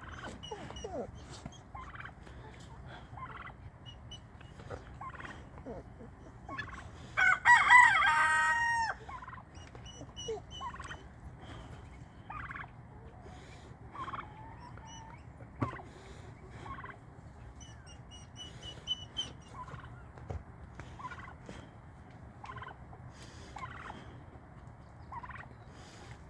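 A tom turkey gobbles once, loudly, about seven seconds in: a rapid rattling call lasting under two seconds. Before and after it come many soft, short bird calls.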